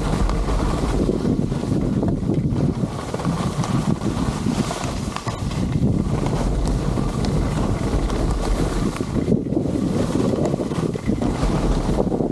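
Wind buffeting the microphone of a pole-mounted camera carried by a skier moving downhill: a steady, rumbling rush that rises and falls, with the hiss of skis sliding over snow.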